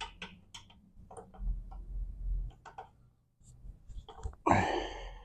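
Scattered clicks and small metal knocks of a socket wrench working tight 14 mm bolts loose on a manual transmission case, with a louder rasping burst about four and a half seconds in.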